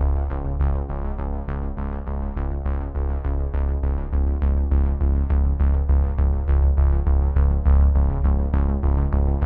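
Background music: an electronic, synthesizer-led track with a steady pulse of short notes over a sustained low bass.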